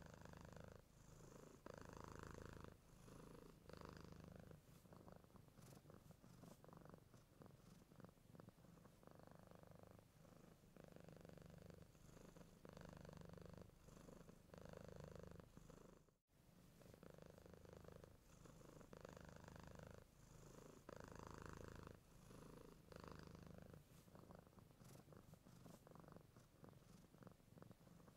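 Domestic cat purring, a faint low rumble that swells and fades about once a second, with a brief break about halfway through.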